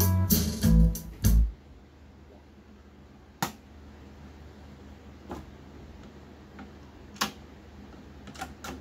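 Guitar music from the Fisher CR-7000 deck's digital player stops about a second and a half in as its stop key is pressed. Then a faint steady low hum remains, broken by a few single sharp clicks, with a quick pair near the end as a finger works the deck's piano-key transport buttons.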